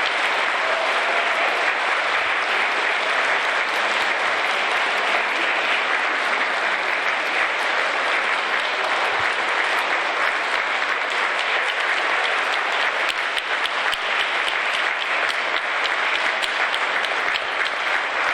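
Sustained applause from a large audience of school children clapping in a hall, steady throughout.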